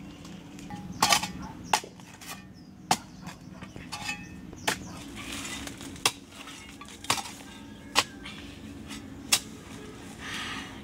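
Long-handled metal spade chopping into hard clay soil: sharp metallic clinks at irregular intervals, roughly once a second.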